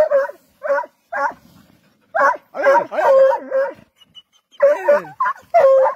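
Hunting dogs yelping and barking excitedly in quick runs of short, high calls, some sliding down in pitch, with brief pauses between runs: dogs working cornered quarry.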